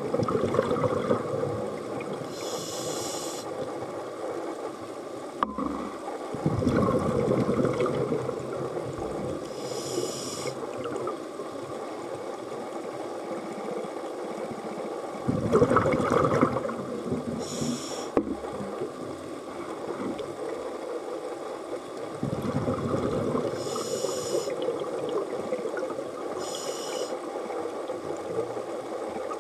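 Scuba diver breathing through a regulator underwater: a short hiss on each breath in and a rush of exhaust bubbles on each breath out, several breaths in turn.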